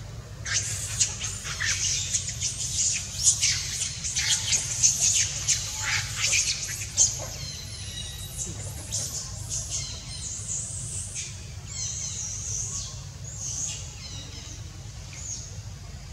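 Birds giving rapid, high-pitched chirps and squawks, thickest in the first half and then more scattered, over a steady low hum.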